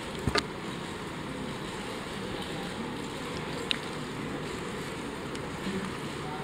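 Steady low background noise of a large hall, with a short sharp knock just after the start and a smaller click in the middle.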